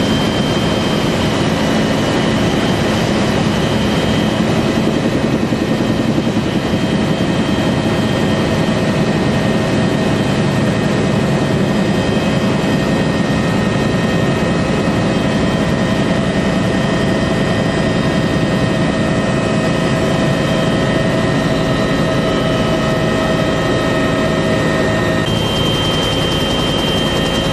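UH-1 Huey helicopter running: a steady turbine whine over the dense, fast beat of the rotor, the whine's tones shifting slightly near the end.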